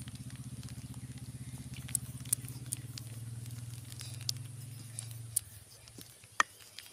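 A low, steady engine drone with a fast, even pulse stops about five seconds in. Scattered light taps and clicks sound over it.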